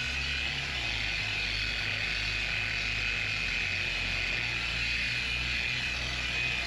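Random orbital polisher with a velvet finishing pad running steadily on a car's painted panel, a constant whine over a low pulsing hum. This is the final, finest polishing stage that levels orange peel in fresh clear coat.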